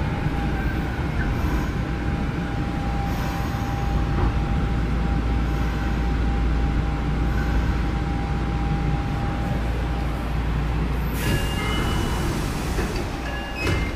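Inside a Nagoya Municipal Subway 2000 series car (Mitsubishi GTO-VVVF) arriving at its terminus: steady rumble of the train with its air conditioning running loudly and a steady tone over it. About eleven seconds in comes a sudden hiss of air with a few short tones, then a sharp knock near the end.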